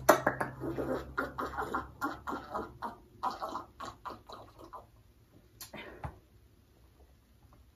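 Drinking from glasses: short sipping and swallowing mouth and throat sounds for about five seconds, thinning out to near quiet, with one brief sound at about six seconds.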